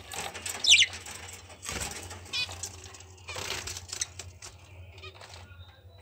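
Budgerigars chirping in short calls, the loudest a sharp falling chirp about a second in, with bursts of rustling, fluttering noise in between.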